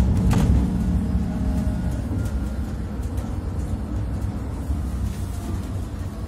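Cabin noise inside an Iveco Dekstra LF38 CNG minibus under way: a steady low engine and road rumble that eases slightly after about two seconds, with a couple of short clicks about half a second in.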